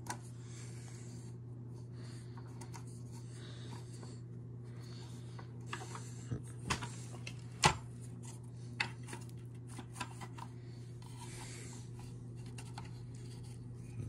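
Hands working at an upright vacuum's brush-roll belt: scattered rubbing and scraping with a handful of sharp clicks from its plastic and metal parts, most of them in the middle of the stretch, over a steady low hum.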